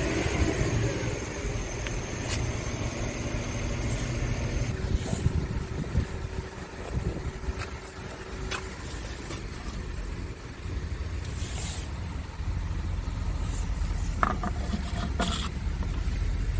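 Scania P truck's diesel engine idling with a steady low rumble, with a few short clicks and knocks from handling the cab's front hatch and the coolant tank cap.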